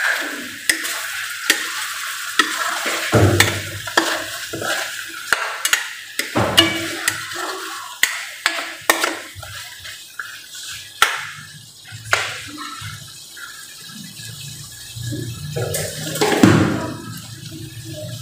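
A metal ladle stirring and scraping pieces of chicken around a large wok, clinking repeatedly against the pan. The thick coconut-milk adobo sauce sizzles and bubbles as it reduces nearly dry.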